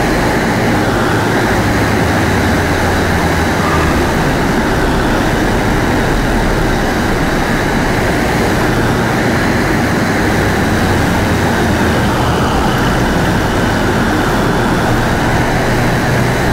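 Loud, dense electroacoustic noise music: a steady rushing wash with a heavy low rumble. The piece is built from recordings of a strong tidal current, an ARP Odyssey synthesizer and optical sound from 16mm film projectors, played back in a hall.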